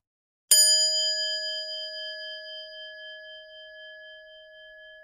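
A single bell-like chime struck about half a second in, then ringing on and fading slowly with a slight waver.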